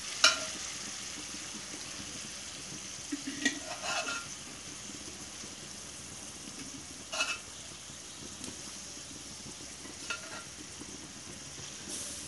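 Chicken pieces sizzling steadily as they fry in oil and masala in a metal kadhai, with a metal spatula clinking and scraping against the pan now and then as it is stirred.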